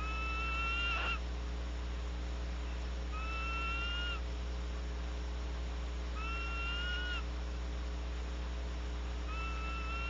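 Female barn owl calling with a repeated screeching cry: four drawn-out calls about three seconds apart, each about a second long and rising slightly in pitch. A steady electrical hum runs underneath.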